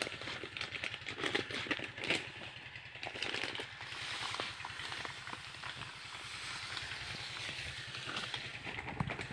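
Plastic sacks and a foil packet crinkling and granules crackling as granular insecticide is poured out and mixed by hand, over the steady low chugging of a small stationary engine.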